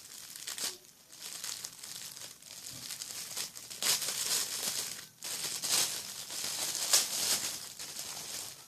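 Paper crinkling and rustling on and off as a folded slip of paper is opened by hand.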